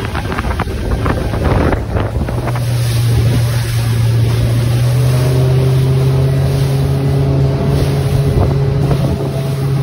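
Motorboat engine running at speed with a steady low drone, over the rush of the hull through the water, spray and wind buffeting the microphone. A few sharp slaps of the hull on waves about two seconds in.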